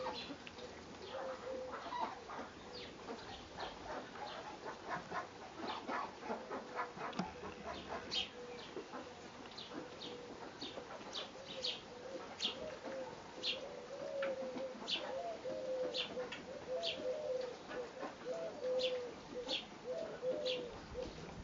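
Birds calling: a low wavering coo and short high chirps repeating about once a second. Dense crackling over the first several seconds from a puppy chewing the stiff bristles of a brush.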